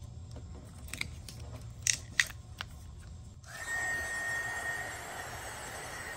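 A few small clicks and snaps from handling the phone's small parts, the two sharpest about two seconds in. About three and a half seconds in, a handheld heat gun starts blowing: a steady hiss with a thin, high whine from its fan.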